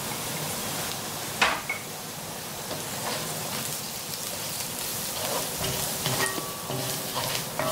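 Onions, chillies and ground spices sizzling in hot oil in a stainless honeycomb-surfaced wok, while a spatula stirs and scrapes through them with scattered clicks and knocks against the pan. The sharpest knock comes about a second and a half in.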